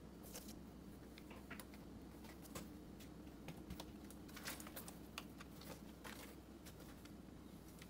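Light, irregular clicks and scratches of cats' claws and paws scrabbling on a corrugated cardboard scratcher as two cats tussle, over a faint steady hum.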